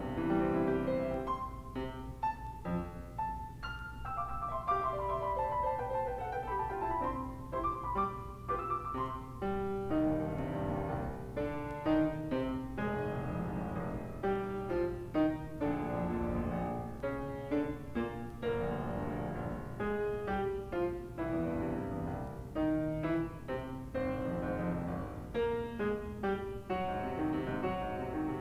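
Solo grand piano being played: a continuous passage of many notes, with a descending run of notes from about four seconds in.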